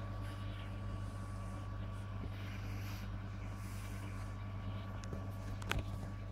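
Steady low electrical hum of aquarium equipment, with one sharp knock near the end.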